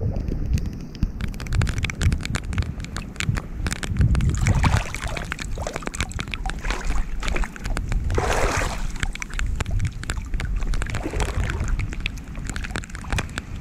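Shallow seawater sloshing and splashing around a hand moving through it, in many small splashes. One longer splash comes a little past the middle.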